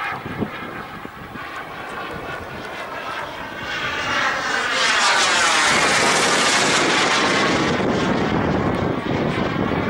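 Radio-controlled Viper model jet flying past, its engine a steady rushing whine that swells about four seconds in as it passes close, then stays loud. A short knock sounds near the start.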